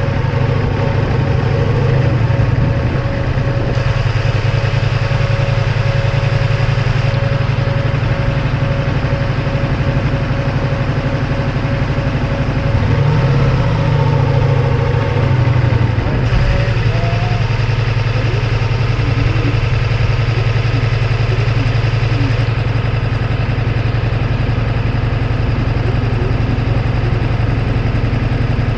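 Ducati Multistrada V4S's V4 engine running steadily, its note briefly lifting about thirteen seconds in.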